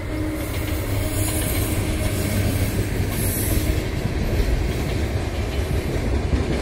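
Indian Railways express train passing at speed behind an electric locomotive: steady rumble and clickety-clack of the passenger coaches' wheels on the rails, with a faint hum from the locomotive fading out in the first couple of seconds.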